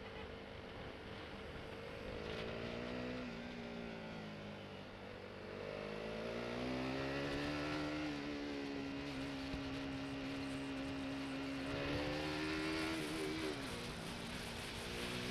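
Motorcycle engine under way, its pitch rising with the revs, dropping sharply about three seconds in, then climbing and holding steady before dipping again near the end. Wind rush runs underneath.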